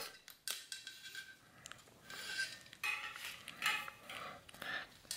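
Steel brake cable being pulled through its cable housing and the metal V-brake noodle: a run of faint scrapes and light metallic rubs in short, irregular strokes.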